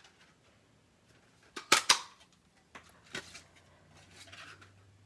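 Handheld paper craft punch cutting through paper: a sharp double snap of the punch pressing and springing back about a second and a half in, then a lighter click about three seconds in.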